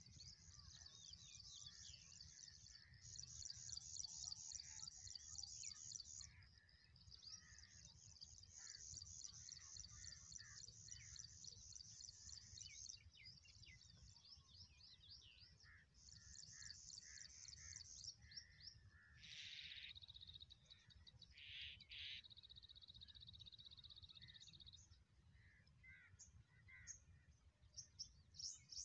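Small birds chirping and trilling in long, rapid, high-pitched runs with short pauses between them, over a steady low rumble of wind on the microphone. A steady high-pitched buzz joins in about two-thirds of the way through.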